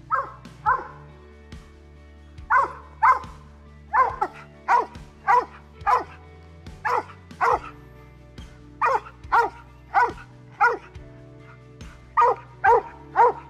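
Mountain cur barking treed: about twenty short, sharp barks at roughly two a second, in runs with brief pauses. The bark is his sign of a squirrel up the tree.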